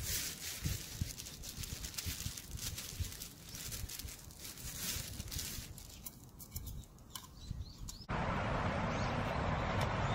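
Clear plastic glove crinkling and rustling in quick crackles as a gloved hand handles and rubs a whole raw fish. About eight seconds in this gives way abruptly to a steady outdoor rushing background with a few high bird chirps.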